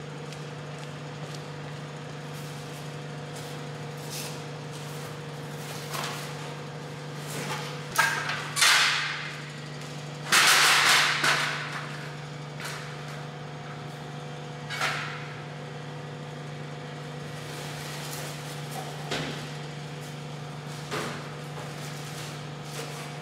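Knocks and clatter of a stepladder being set up beside a wheelie bin and rubbish being moved, with the loudest, longer clatter about ten seconds in. A steady low hum runs underneath.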